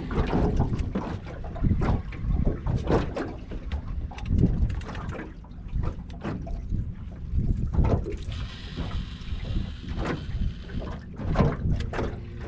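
Wind buffeting the microphone in uneven gusts, with water slapping against a small boat's hull.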